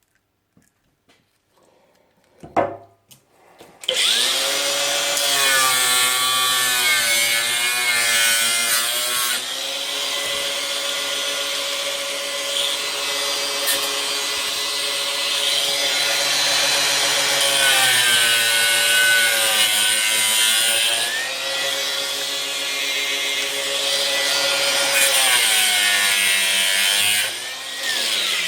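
Electric power tool cutting into the plastic case of a lead-acid car battery; it starts about four seconds in, just after a single knock, and its motor pitch dips and recovers again and again as it bites into the case, stopping near the end.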